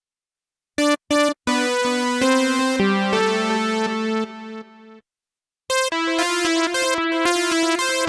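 Tone2 Nemesis 3 software synthesizer playing keys presets. Two short chord stabs about a second in lead into a held chord phrase that fades out about five seconds in. After a short gap, a second keys preset starts a fast, evenly repeated chord pattern.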